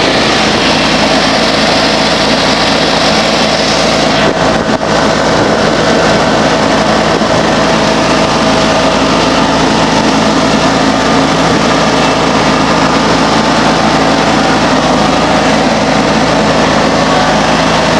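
John Deere X585 garden tractor's engine running steadily while the tractor is driven along the road.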